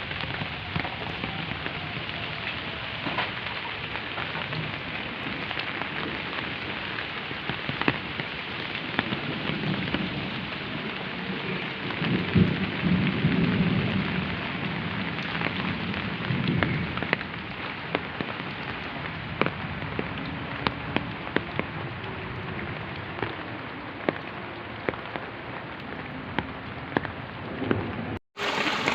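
Rain falling steadily, with many sharp drops striking close by. A low rumble swells and fades around the middle, and the sound drops out for a moment near the end.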